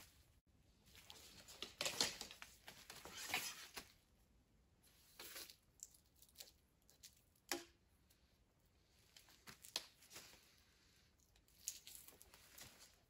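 Faint rustling of clothing and movement, with small clicks and taps as a bow and arrow are picked up and handled and the arrow is nocked; one sharp click about seven and a half seconds in.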